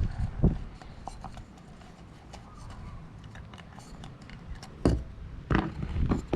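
Small parts being handled: light clicks, taps and scraping as the O-rings are swapped on the oil filter, with two sharper clicks near the end.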